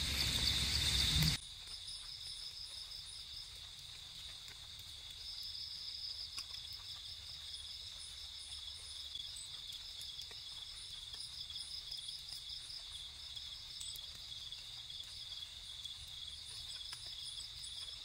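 Night insects chirping steadily, a continuous high trill with a faster pulsing chirp above it. It opens with about a second and a half of louder noise that cuts off abruptly.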